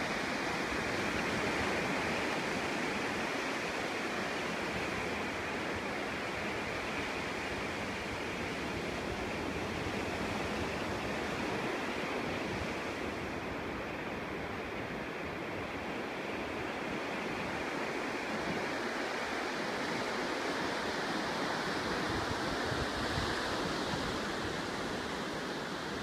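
Ocean surf breaking on a sandy beach, a steady wash of noise without distinct separate crashes.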